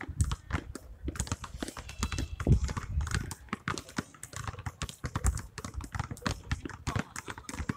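Several basketballs being dribbled at once on asphalt: a dense, irregular patter of overlapping bounces.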